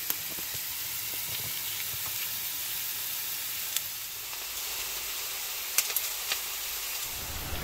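Chopped garlic sizzling in olive oil in a frying pan: a steady hiss with a few sharp clicks scattered through it.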